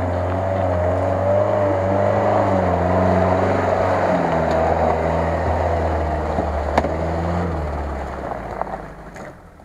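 UAZ off-road vehicle's engine running under load as it drives through mud, its pitch wavering with the throttle, then fading as it pulls away near the end.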